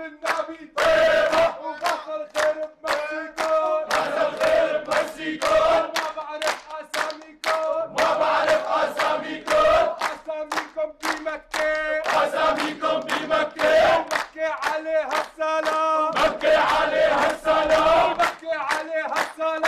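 A crowd of men chanting together in unison, with rhythmic hand clapping at about three beats a second.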